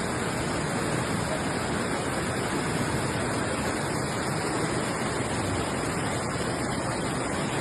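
Floodwater rushing, a steady, even noise with no breaks.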